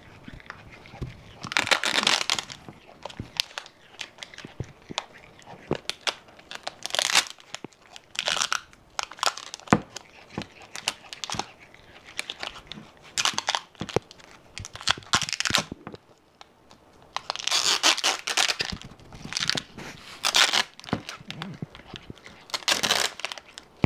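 A monkey handling a roll of clear packing tape and its plastic wrapping. Repeated short bursts of tearing and crinkling are broken up by sharp clicks and taps.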